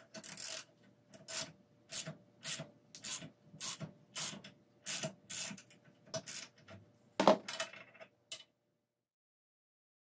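Ratchet wrench turning the screw of a homemade nut splitter, giving short rasping runs of ratchet clicks about twice a second. About seven seconds in comes a single sharper, louder crack, the loudest sound, as the nut splits.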